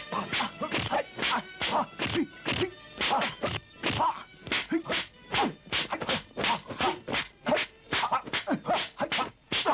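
A rapid, irregular run of dubbed kung-fu-film punch and block sound effects, sharp whacks about three a second, as two fighters trade hand strikes.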